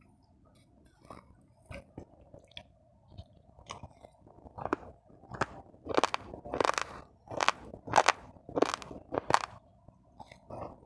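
Raw uncooked rice being chewed close to the microphone: faint small clicks at first, then a steady run of loud, sharp crunches about every two-thirds of a second as the dry grains are bitten and ground.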